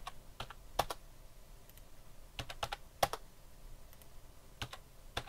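Light clicks of a computer keyboard and mouse, single keystrokes and small clusters with short pauses between.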